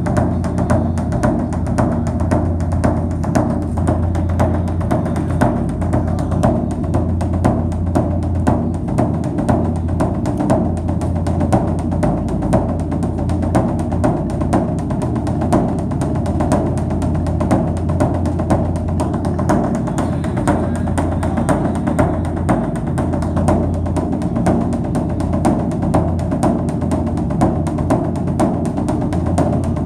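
Background music with a steady drum beat over a deep, sustained low tone.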